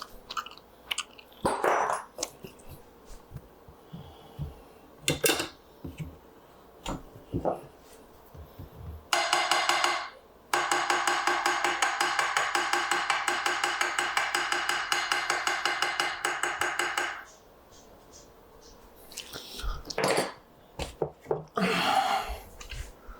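Die grinder running in two bursts, a short one and then one of about six and a half seconds: a steady whine with a fast pulsing as it grinds a repair in a wooden rifle stock down flush. Scattered clicks and knocks of handling come before and after.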